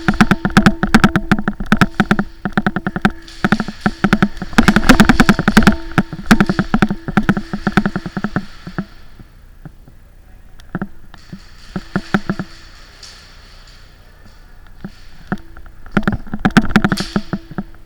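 Airsoft guns firing rapid full-auto bursts, a fast string of sharp cracks over a steady mechanical whine. The firing is near-continuous for the first half, then comes in short bursts with pauses between them.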